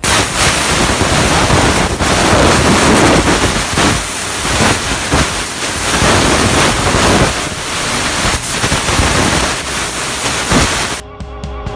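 Jewelry steam cleaner blasting pressurised steam from its nozzle onto a ring held in tweezers: a loud, steady hiss with a few brief dips, which stops near the end.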